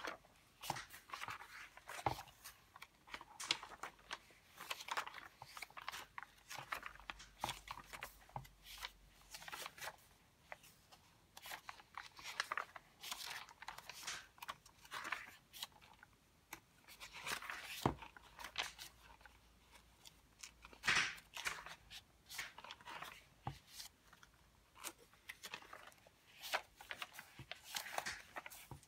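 Pages of a handmade junk journal made of stained, aged-look paper being turned by hand one after another: a run of irregular dry paper rustles and swishes, with a few louder page flaps.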